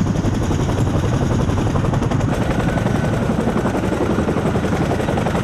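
CH-47 Chinook tandem-rotor helicopter hovering close overhead: loud, steady rotor noise with a rapid, even beat from the blades.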